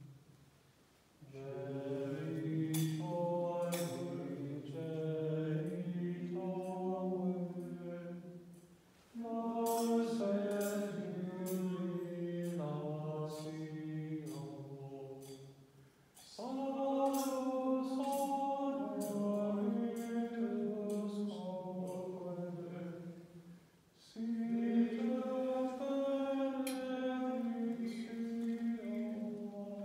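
Unaccompanied chanted hymn sung by a low, male-range voice in slow, long phrases of about seven seconds, with short breath pauses between them, typical of chant at Eucharistic adoration and Benediction.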